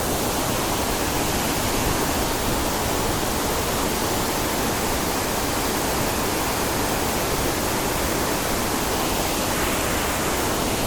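Waterfall running: a steady, full rushing of falling water, unchanging in level.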